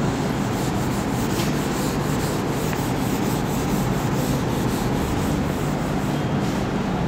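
A handheld whiteboard eraser rubbing across a whiteboard in repeated back-and-forth strokes, wiping off marker writing.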